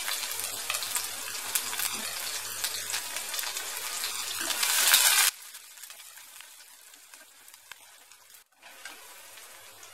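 Chopped onion sizzling loudly in hot oil with cumin seeds in a nonstick kadai. About five seconds in, the sound cuts off suddenly and gives way to a much quieter sizzle while the softened onions are stirred with a wooden spatula.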